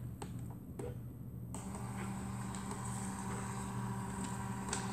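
Built-in thermal recorder of an Edan iM8 patient monitor starting up after the Record key is pressed: a couple of light clicks, then about a second and a half in a steady motor whirr begins as it feeds and prints the paper strip.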